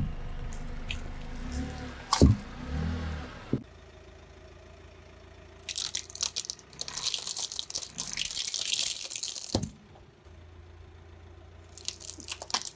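A car tyre slowly rolling over dry pine cones, the woody cone scales crackling and snapping as they are crushed flat, for about four seconds in the middle and again near the end. Before that, a car's low engine rumble with a single sharp knock about two seconds in.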